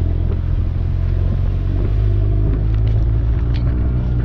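Large motorcycle's engine running steadily, heard from the pillion seat while riding, with wind and road noise over it.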